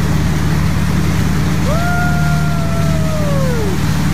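Motorboat engine running steadily under way, with the rush of the wake and wind. Almost two seconds in, a single long high call rises, holds and slides down near the end.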